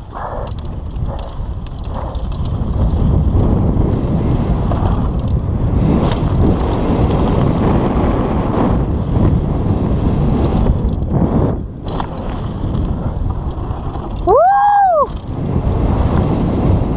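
Wind buffeting the microphone and tyres rolling over a dirt and gravel trail as a downhill mountain bike descends, with clicks and rattles from the bike over bumps. About fourteen seconds in, a short high-pitched squeal rises and falls.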